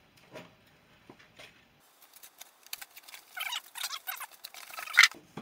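Cardboard box and paper packaging being handled as an air fryer is unpacked. There are a few faint ticks at first, then from about two seconds in a run of rustling and crinkling with some squeaky rubbing, loudest in a sharp crackle near the end.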